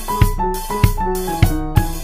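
Background music: a keyboard tune over a steady drum beat, a little under two beats a second.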